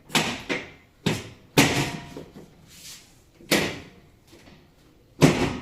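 Chiropractic bed's drop section being set and released repeatedly, giving about half a dozen sharp, irregularly spaced clacks as the padded section drops onto its stop.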